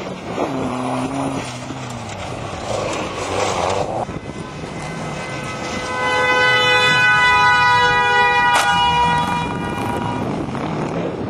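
Off-road race vehicle engines running hard, with a falling pitch early on. Later comes a loud, steady high-pitched tone lasting about three seconds, with a sharp click near its end.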